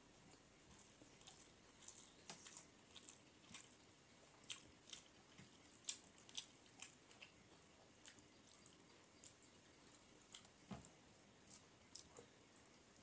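Eating by hand: soft, irregular wet clicks and squelches as rice and fish curry are mixed with the fingers and chewed.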